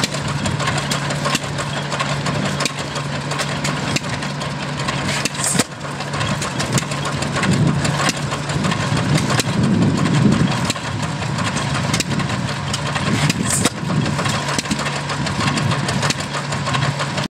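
Antique single-cylinder stationary gas engine running, with a steady hum and a rapid train of sharp exhaust pops, driving a grinding mill through a flat belt. The sound swells louder for a couple of seconds around the middle.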